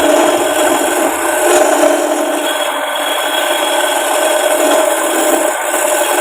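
Wooden spoon blank being worked on a spinning wood lathe: a steady rubbing, rasping sound of wood against a tool or abrasive, over the lathe's continuous tone.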